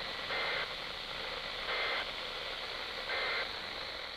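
Three short bursts of warbling two-tone SAME data over steady radio static, about a second and a half apart: the end-of-message code that closes an Emergency Alert System weekly test on NOAA Weather Radio, received with a weak signal.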